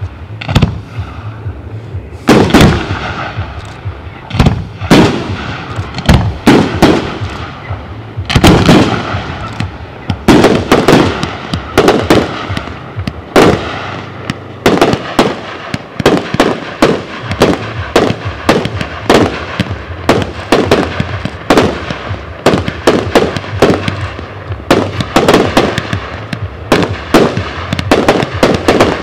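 Aerial fireworks display: loud bursts bang one after another a second or two apart, then from about ten seconds in come faster, two or three bangs a second.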